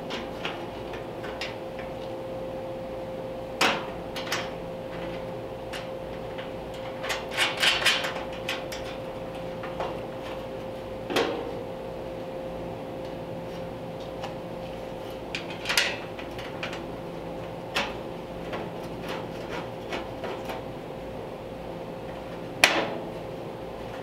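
Scattered clicks, taps and knocks of hand tools, screws and small steel parts as a latch brace is screwed and bolted into a sheet-metal car door frame. A steady hum runs underneath and stops suddenly with a sharp knock near the end.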